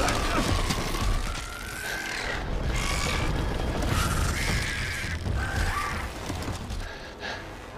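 Film sound effects of a giant creature shaped like a fallen tree trunk rising up: creaking and cracking wood over a deep rumble, with drawn-out sliding high calls.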